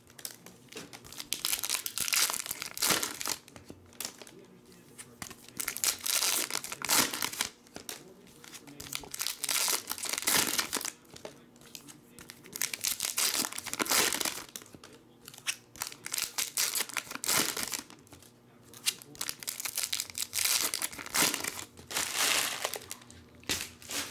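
Foil wrappers of 2017-18 Panini Hoops basketball card packs being torn open and crinkled, one pack after another, in repeated bursts of crackling.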